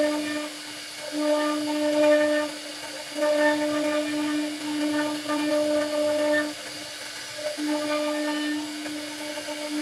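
CNC router spindle whining at a steady high pitch while its cutter carves a profile into a wooden frame rail. The sound swells and eases as the bit cuts, with brief dips and a quieter second about seven seconds in.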